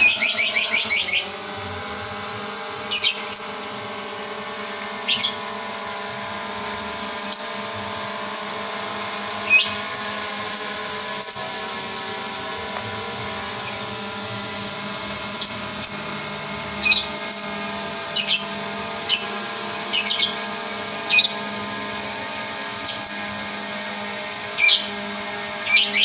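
SJRC F11 Pro drone's brushless motors and propellers running with a steady multi-tone hum, having just spun up. Short, sharp high-pitched chirps come over it at irregular intervals of one to two seconds and are louder than the hum.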